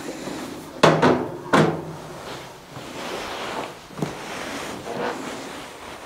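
Metal fuel tank of a Corona kerosene heater being handled and set down on the heater: two clunks about a second in, a lighter knock near four seconds, and handling noise between.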